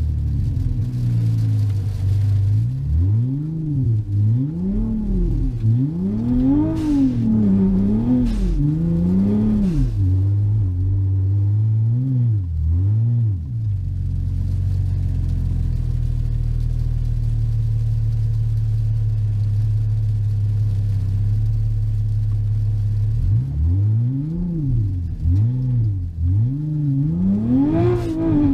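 Turbocharged Audi S5 engine with a Precision 6466 turbo, heard inside the cabin, its revs rising and falling again and again as the throttle is worked while the car slides on snow. Midway the engine holds a steady note for several seconds before the revs start rising and falling again.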